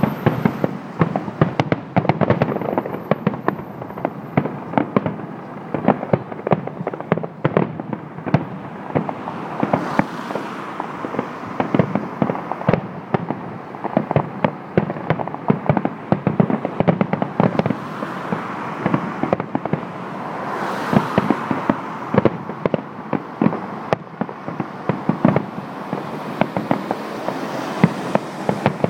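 Fireworks display: a dense, unbroken barrage of bangs and crackling, many reports a second.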